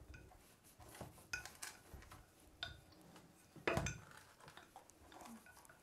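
Faint clicks and knocks of a wooden rolling pin being rolled back and forth over cookie dough on a silicone baking mat, with one louder knock a little under four seconds in.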